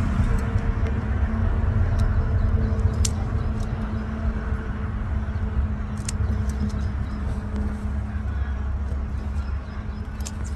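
A steady low mechanical drone runs throughout, and a few sharp clicks stand out over it, typical of scissors snipping okra pods from the stalk.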